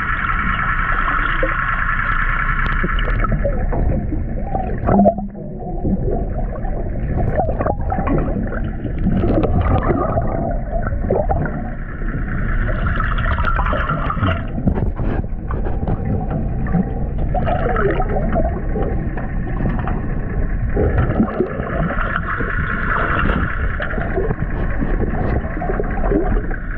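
Underwater noise picked up by a GoPro inside its waterproof housing: a continuous muffled rumble with gurgling water, a hiss that fades and returns, and a few sharp knocks.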